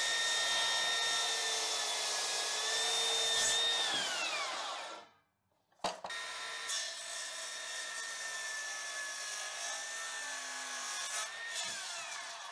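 Makita HS011G 40V Max XGT cordless circular saw cutting through a 4x4 timber post in one pass, a steady high whine over the rasp of the blade in the wood. About four seconds in the whine falls away as the saw winds down; after a brief gap it runs and cuts again, and winds down once more near the end.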